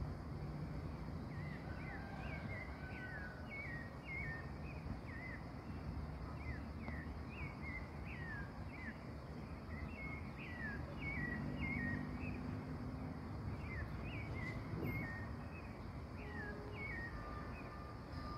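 Repeated short chirps, each dropping quickly in pitch, from a small animal calling at night, coming irregularly about one or two a second over a steady low outdoor rumble.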